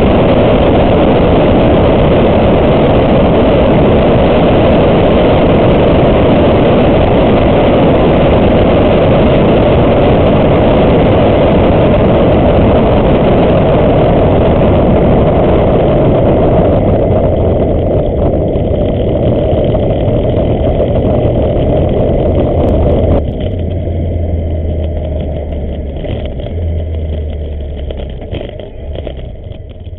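BMW R1100S boxer-twin motorcycle under way, its engine buried in a steady rush of riding noise. From about two-thirds of the way through the rush thins out; near the end it drops off sharply and the engine's low note comes through as the bike slows down off the throttle, fading as it goes.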